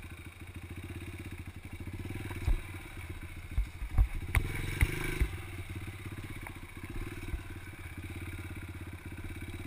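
Yamaha TT-R125 dirt bike's single-cylinder four-stroke engine running at low speed, picking up revs for a few seconds in the middle. Several sharp knocks come through while it is revving.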